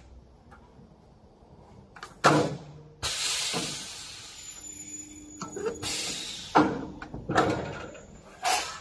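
Magnabend 1250E electromagnetic sheet metal brake being worked. A sharp clack comes about two seconds in, then an abrupt rushing hiss that fades over a couple of seconds, and several more metallic clanks near the end as the clamp bar and bending beam are operated.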